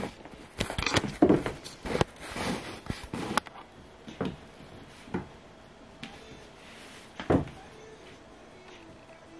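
A kitten batting at a ball toy on a hardwood floor: a quick run of knocks and rattles in the first few seconds, then a few single knocks, the loudest about seven seconds in.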